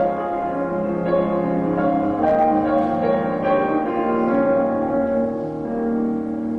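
Solo piano playing held chords and melody notes.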